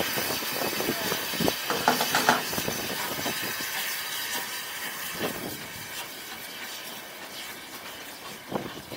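Narrow-gauge steam locomotive Welsh Pony hissing steam as it moves slowly off along the track, with a few light clicks; the hiss fades steadily as it draws away.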